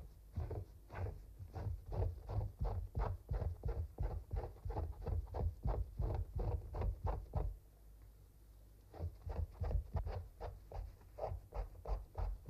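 A hand scraper drawn in quick repeated strokes over the flesh side of a mink skin on a wooden stretching board, scraping off fat. About three strokes a second, with a pause of a second or so a little past halfway.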